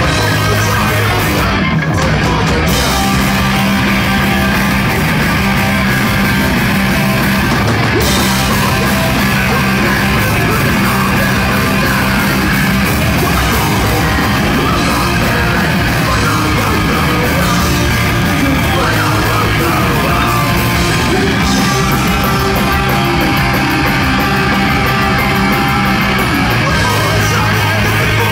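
Punk rock band playing live, loud and steady: distorted electric guitars and drums with a shouted lead vocal.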